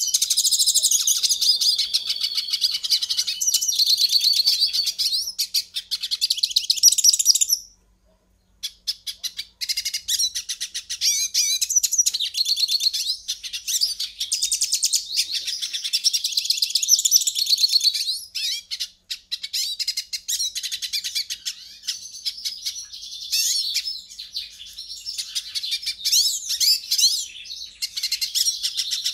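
A pintassilgo finch singing a long, fast, twittering song of rapid high notes and trills. It breaks off briefly about eight seconds in, then carries on.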